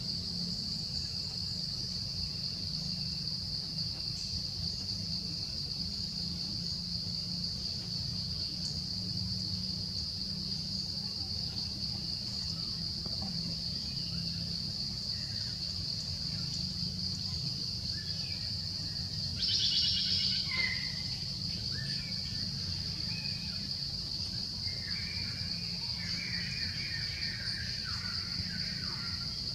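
Steady high-pitched drone of insects over a low background rumble, swelling briefly about two-thirds of the way through, with a few short bird calls near the end.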